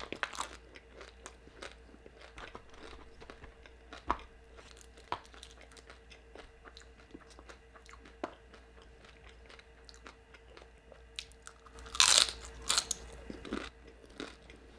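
Close-miked mukbang eating: chewing and biting with small mouth clicks and crunches, and a louder crunching spell about twelve seconds in. A faint steady hum runs underneath.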